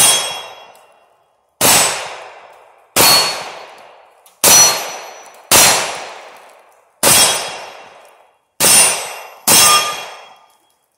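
Semi-automatic pistol fired eight times at an uneven pace, about a second to a second and a half apart, each loud shot echoing and dying away.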